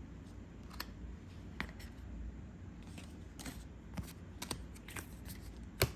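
Trading cards being handled and flipped through, giving irregular small clicks and snaps of card edges, with a sharper snap near the end.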